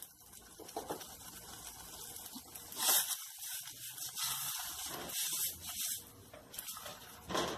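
Silicone spatula stirring thick tomato sauce in a stainless steel saucepan: wet squelching and scraping against the pan, with louder strokes about three seconds in and near the end.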